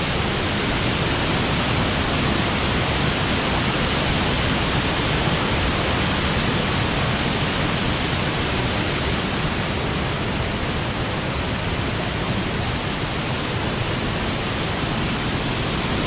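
Small forest waterfall pouring down a rock chute: a steady, even rush of white water.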